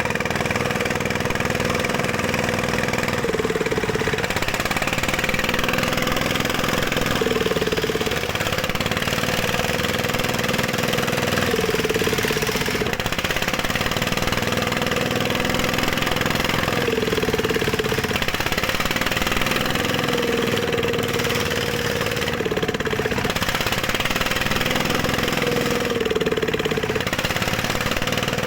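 Dongfeng diesel engine of a gold-mining rig running steadily. Its note dips briefly and recovers about every four to five seconds.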